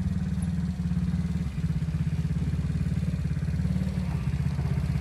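Small youth ATV's engine running steadily, a low, rapid even pulsing.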